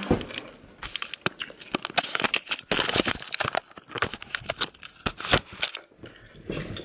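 Irregular crinkling and rustling with many small clicks and knocks, the sound of objects being handled and moved.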